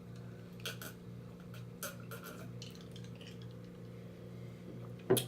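Light clinks and taps of dishes and utensils over a steady low hum, with one short, louder sound just before the end.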